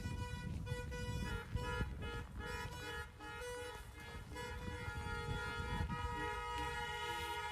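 Many car horns honking at once: several long held notes at different pitches overlap and take turns without a break, over a low rumble.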